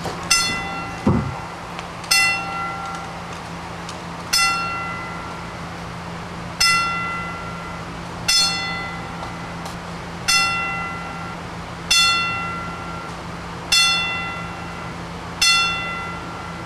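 Wrestling ring bell struck slowly, nine strikes about two seconds apart, each ringing out and fading: a ten-bell salute, the tolling tribute for a wrestler who has died. A short low thump about a second in.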